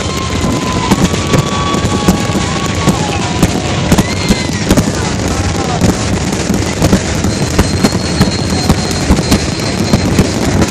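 Fireworks display in full barrage: a continuous dense crackle of shell bursts with frequent sharp bangs. A few long whistling tones sound over it in the first few seconds.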